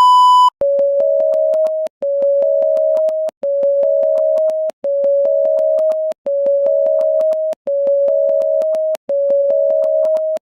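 Electronic emergency-alert alarm tone: a short high beep, then a two-note low-to-high tone repeated about every one and a half seconds.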